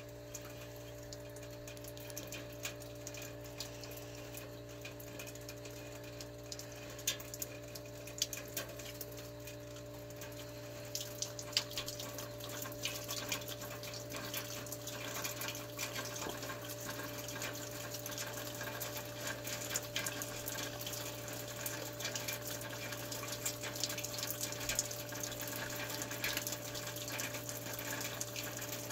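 Panasonic WC09H3E3 air-to-water heat pump outdoor unit in its de-icing (defrost) cycle: a steady machine hum with a few fixed tones, under a trickling, crackling hiss of meltwater that grows louder about eleven seconds in.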